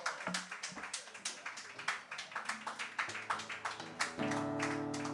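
Scattered applause from a small audience, many separate hand claps. About four seconds in, a steady held musical chord starts and keeps sounding.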